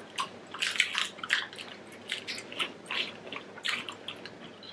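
Eating sounds from large shell-on prawns: irregular wet crackles, clicks and smacks of chewing, mixed with the shells being pulled apart by hand.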